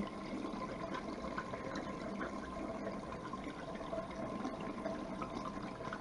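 Wash water draining out of a portable non-electric spin washing machine, pouring steadily from its drain hose into a stainless-steel sink drain.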